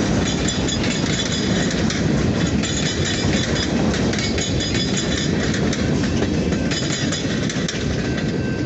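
A switching train rolling along the track, with a steady low rumble and wheel noise and an on-and-off high-pitched squeal from the wheels.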